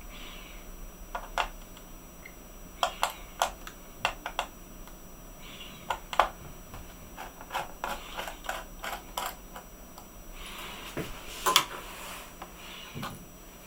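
Irregular small clicks and taps of a laptop's plastic case parts and display being handled and pulled apart during disassembly, with a short scraping rustle about ten seconds in.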